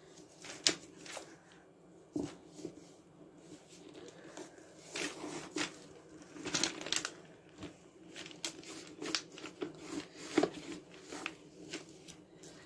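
Handling noise from a boot repair: irregular rustling, crinkling and small clicks as hands work waterproof sealing tape onto a leather winter boot's sole over crinkly newspaper, with a few sharper snaps.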